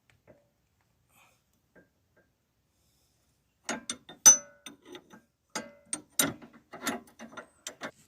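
Hand tools clicking and clanking on metal at the Jeep's loose sway bar link nut, a run of irregular sharp clicks and knocks, some ringing briefly, starting about halfway through.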